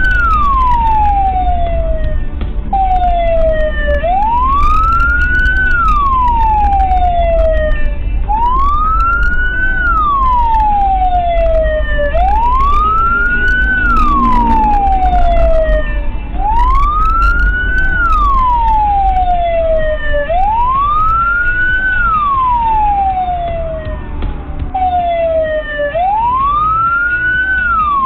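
Vehicle siren on a wail, each cycle rising quickly and then falling more slowly, repeating about every four seconds, clearing the road for the escorted ambulance. Under it is the steady low rumble of the car driving.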